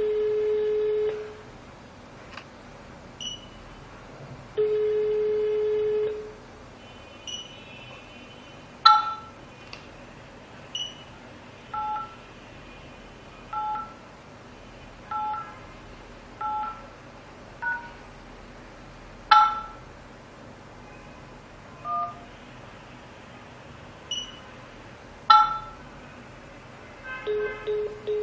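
Telephone line tones: a steady single-pitch ringing tone sounds twice near the start, then touch-tone (DTMF) key tones follow one at a time about every second and a half, mixed with a few short high beeps.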